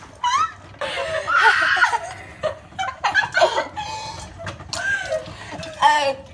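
Young girls laughing and squealing, with a harsh, breathy outburst about a second in, as they react to a mouthful of ground cinnamon in the cinnamon challenge.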